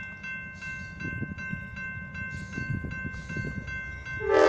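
Grade-crossing warning bells ringing with an even beat, under the low rumble of an approaching Amtrak Cascades Talgo passenger train that grows from about a second in. Near the end, the locomotive's horn starts to blow loudly.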